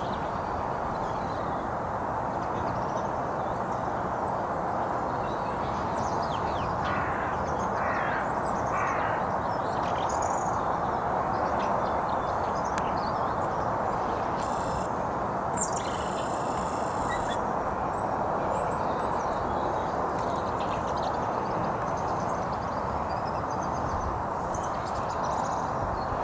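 Steady outdoor background hiss with a few faint bird chirps, several of them about seven to nine seconds in.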